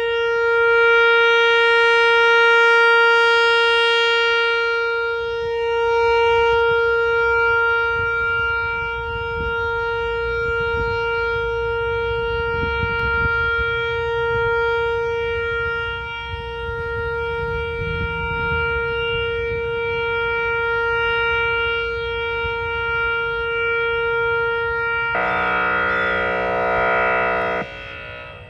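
Outdoor tornado warning siren sounding a steady tone at one pitch, swelling and fading slowly in loudness. About 25 seconds in, the sound switches abruptly to a lower, buzzier tone, which cuts out briefly near the end.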